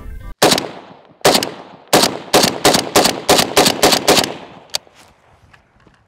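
A semi-automatic 7.62×39 rifle fired repeatedly: about ten sharp, loud shots, each trailing off in an echo. A single shot comes first, another a second later, then a quick string of about eight shots.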